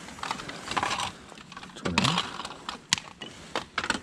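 Bricks and breeze blocks clinking and scraping as a rubble pile is rummaged through by hand for scrap cable, with one sharp click just before three seconds in.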